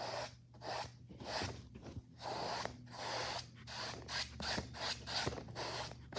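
Paintbrush scrubbing paint in short back-and-forth strokes, about two scratchy strokes a second.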